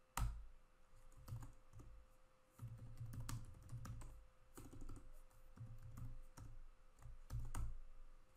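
Computer keyboard typing: irregular key clicks as short commands are typed and entered, many with a dull low thump beneath them. A faint steady hum runs underneath.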